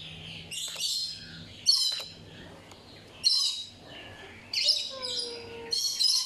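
Birds chirping: about five short bursts of high, chattering calls roughly a second apart.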